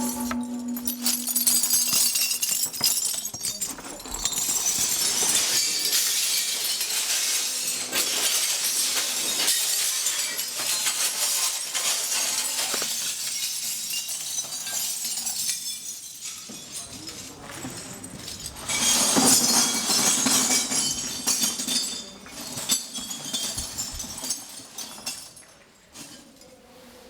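Gunpowder burning on a drawing: a crackling, fizzing hiss full of small pops that surges twice and dies away near the end.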